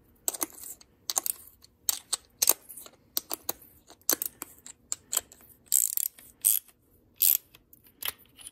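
Metal carburetor parts clicking and clinking as they are handled and fitted together, a run of short irregular clicks with a couple of longer scraping rasps past the middle.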